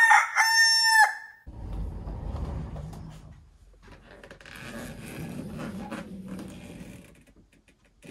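A rooster crowing, one long held call that ends about a second and a half in. Low rumbling noise follows, then a few seconds of softer rustling noise.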